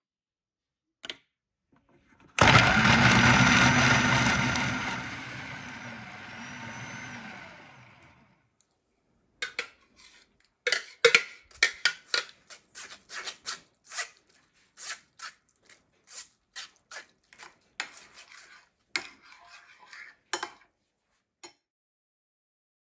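A food processor blending tomatoes starts abruptly, runs loud and dies away over about five seconds. Then a spoon scrapes and taps as it presses the tomato pulp through a metal mesh sieve, making a long run of sharp, irregular clicks.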